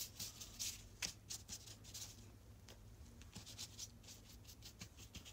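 Paintbrush brushing quickly over paper in a rapid series of short, faint strokes.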